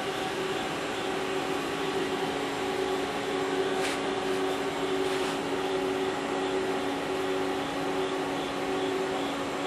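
Mori Seiki ZL-15 CNC lathe running under power: a steady mechanical hum with a few fixed pitched tones, broken by two brief hisses about four and five seconds in.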